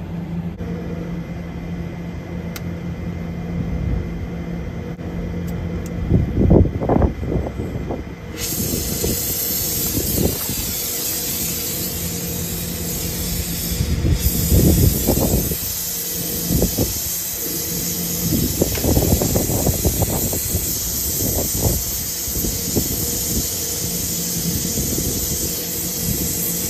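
Oxy-fuel brazing torch lit about eight seconds in, then the flame's steady hiss as it heats the copper pipe stubs to unbraze the old compressor. A few dull knocks of handling sound now and then.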